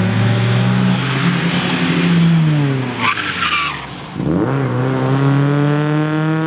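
Rally car engine at high revs, its pitch falling as the car slows, with tyres squealing briefly about three seconds in. The engine then picks up again, its pitch rising steadily as the car accelerates.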